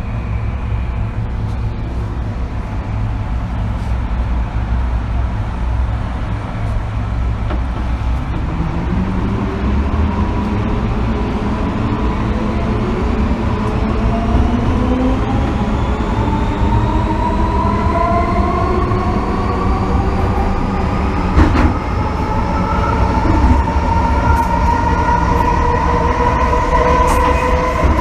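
MTR M-Train electric multiple unit accelerating. A low running rumble carries through, and from about a third of the way in a whine of several tones from the traction motors rises steadily in pitch as the train gathers speed. There is a single sharp knock near the three-quarter mark.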